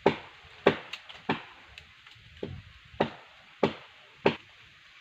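A blade chopping into tree wood: about seven sharp, separate strikes roughly half a second apart, with a short pause near the middle.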